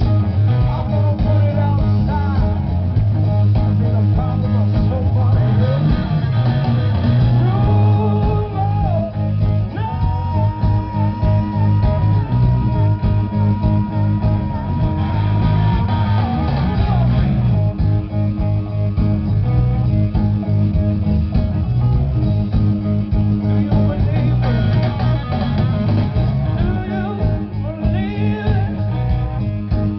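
Live rock band playing loud through a festival PA, heard from the audience: electric guitar, bass and drums, with a long, wavering high note held about ten seconds in.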